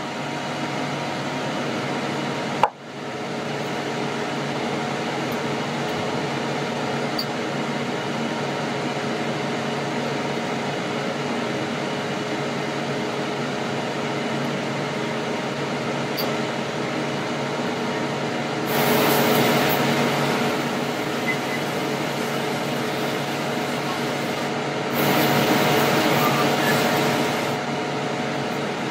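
Ninja dual-drawer air fryer running, its fan giving a steady hum with several fixed tones over an even hiss. The sound drops out briefly about three seconds in, and twice swells into a louder hiss for two or three seconds.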